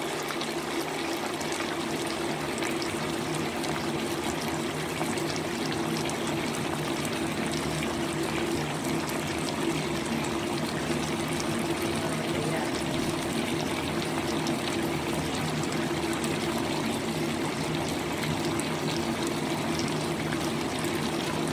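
Chicken wings simmering and sizzling in sauce in a wok: a steady crackling fizz, with a constant low hum underneath.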